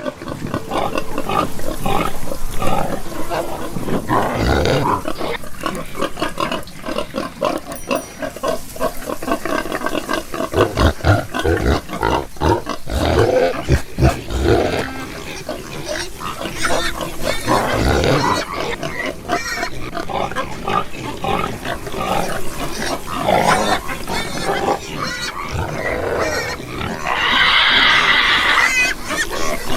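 Domestic pigs grunting continuously in short, overlapping bursts, with a louder, higher-pitched squeal about 27 seconds in.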